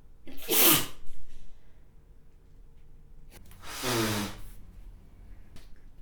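A woman sneezing into a face mask: one loud, sudden sneeze with a falling voice about half a second in. About three and a half seconds in comes a second, quieter burst with a falling voice.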